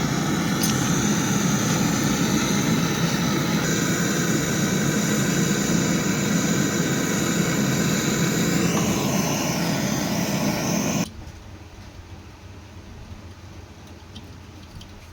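A loud, steady machine-like running noise with a low hum, which cuts off suddenly about eleven seconds in, leaving only a faint low background noise.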